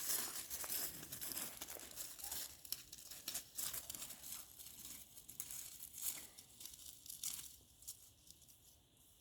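Irregular rustling and crinkling with many small crackles, dying away about two seconds before the end.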